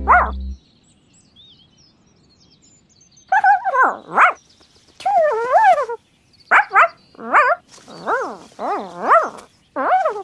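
A string of short, loud animal-like yelps and whines with wobbling pitch, voiced by actors for cartoon animal characters, starting about three seconds in after a music chord cuts off.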